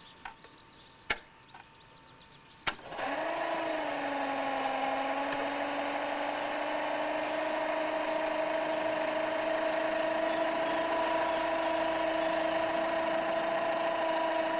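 A few clicks, then about three seconds in the electric motor of a 1972 folding camping trailer's automatic opening mechanism starts. Its pitch sags briefly as it takes the load, and it then runs with a steady whine, opening the trailer.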